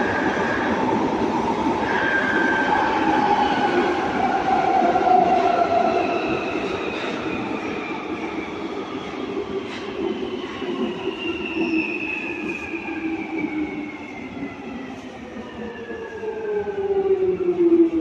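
London Underground 1996 Stock Jubilee line train heard from inside the carriage, running and then slowing. Its motor whines glide steadily down in pitch from about six seconds in as it brakes, over the rumble of the wheels, which grows louder again near the end.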